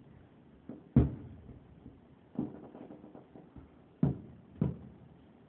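Fireworks exploding outside, heard from indoors through a window as a handful of muffled booms with short echoing tails, the loudest about a second in.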